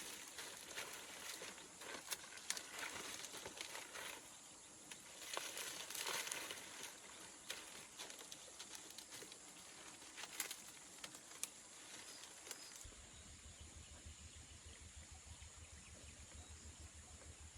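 Faint rustling and crinkling of dry leaves with scattered sharp clicks. About thirteen seconds in, the rustling fades and a faint steady low hum takes over.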